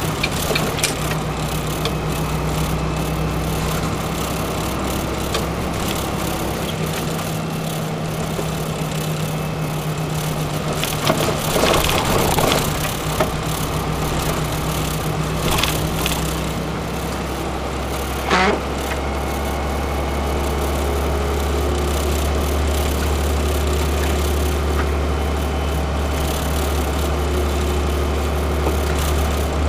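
Loaded gravel truck's diesel engine running steadily on the road, heard from the cab, with rattling and knocks from bumps around the middle. From about two-thirds of the way through the engine note drops lower and grows a little louder.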